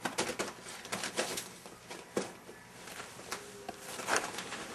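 Border Collie puppy shuffling about in a wire crate: a scattered run of light clicks and rustles.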